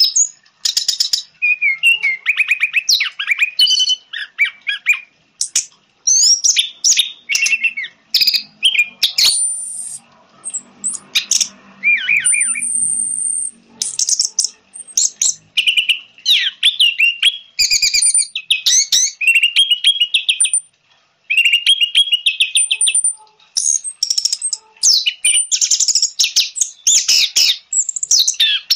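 Orange-headed thrush (anis merah) singing a long run of quick, varied phrases of whistles, rapid trills and chattering notes, with only brief gaps between them.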